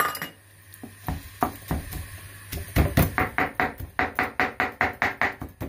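Kitchen knife chopping raw horse mackerel fillets on a cutting board, mincing them for fish balls. A few separate chops come first, then rapid, even chopping at about four strikes a second from about halfway in.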